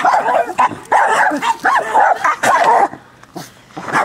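Dog barking in a rapid run of short, loud barks, with a brief pause near the end before it starts again.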